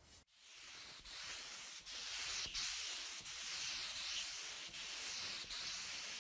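Sanding: a steady, even abrasive scratching that starts just after a brief break and stops abruptly at the end.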